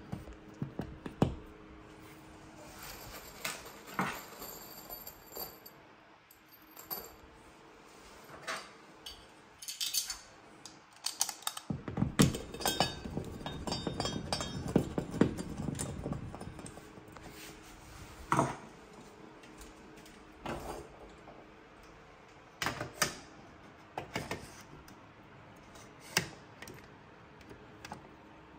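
Scattered clicks, taps and light metallic clatter of small parts and tools being handled, with a denser stretch of rattling and scraping about twelve seconds in that lasts a few seconds.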